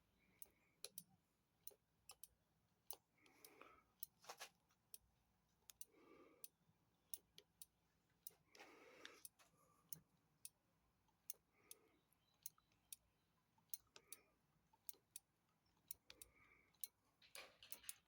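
Faint, irregular light clicks and a few soft rustles from hands working on a motorcycle's brake system.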